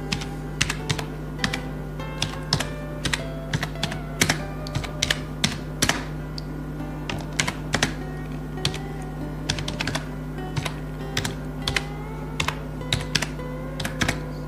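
Typing on a computer keyboard: irregular keystroke clicks in quick runs with short pauses, over soft background music.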